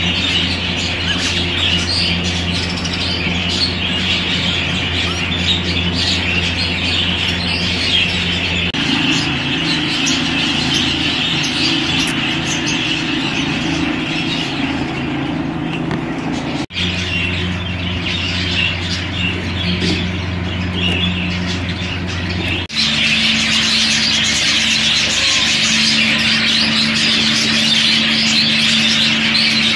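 Budgerigars chattering and chirping continuously over a steady low hum. The sound changes abruptly three times.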